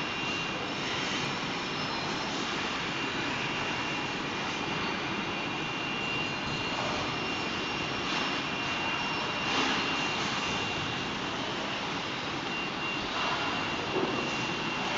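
Steady machinery noise of a factory floor, with powered roller conveyors running as they carry fridges along the line, and a thin, steady high whine over it. A couple of brief louder knocks come about two-thirds of the way in and near the end.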